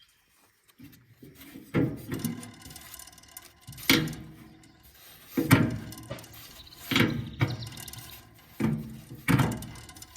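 A series of sharp knocks, about one every second and a half, with a low rumble between them.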